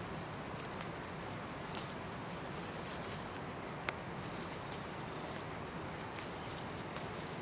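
Leafy greens being picked by hand: faint leaf rustles and stem snaps over a steady outdoor hiss, with one sharper click about four seconds in.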